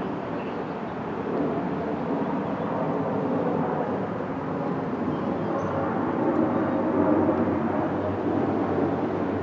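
A steady engine drone that swells a little around the middle and then eases.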